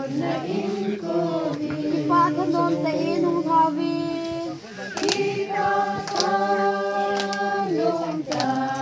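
A group of women singing together unaccompanied in long, held phrases, the dance song of a Kuki lenkhom line dance. The singing breaks briefly about halfway through, then a new phrase begins.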